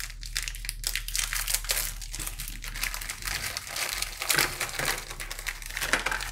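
Plastic biscuit wrapper of an Oreo packet crinkling and crackling as hands tear it open and pull the biscuits out.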